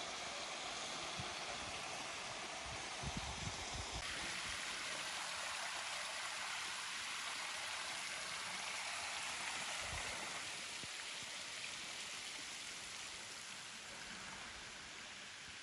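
Small waterfall: water falling from a mossy rock overhang and splashing into a pool, a steady even hiss.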